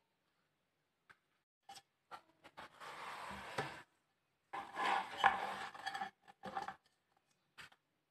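Kitchen handling sounds: a few sharp taps of a knife and potatoes on a plastic cutting board, and two longer stretches of scraping as cut potatoes and a glass plate are slid about on the board.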